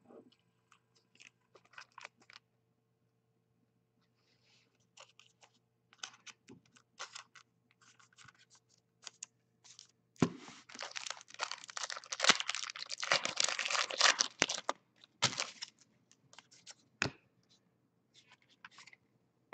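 Trading cards handled with light clicks and rustles, then a few seconds of tearing and crinkling as a foil trading-card pack is ripped open, followed by a couple of sharp taps.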